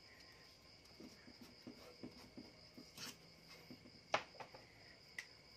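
Faint handling of a strip of masking tape being peeled and pressed down onto a metal case, with light rustles and a few sharp clicks, the loudest a little after four seconds in. A thin steady high-pitched tone runs underneath.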